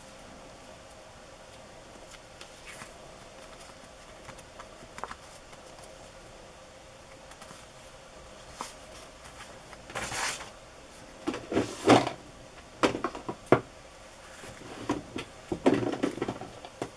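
Paper cutouts and card being handled on a craft table: quiet at first, then from about ten seconds in a brief rustle of paper followed by a series of light taps and knocks as the pieces are pressed and set down.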